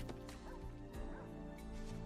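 Quiet background music with sustained low notes, and short brief sounds scattered over it.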